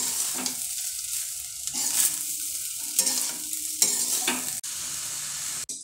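Vegetable fried rice sizzling in a kadai while a steel spatula stirs and tosses it, scraping the pan about once a second over a steady frying hiss.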